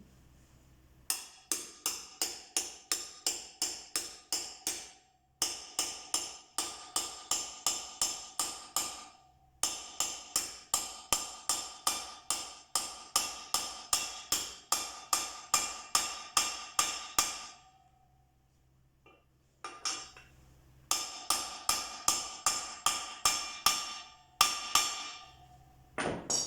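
Repeated hammer blows on metal, about three a second with a ringing tone, driving a new rear wheel bearing into a Suzuki motocross bike's hub; they come in several runs with short pauses between.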